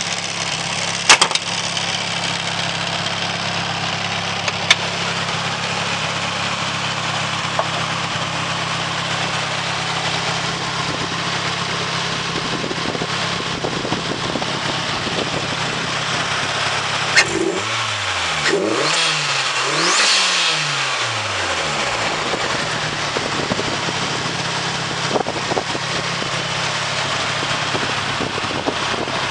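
Nissan Silvia S14's turbocharged SR20DET four-cylinder, fitted with a TRUST T518Z turbo, idling steadily. About two-thirds of the way through it is revved in three quick blips, each rising and falling, then settles back to idle. A few sharp clicks sound near the start.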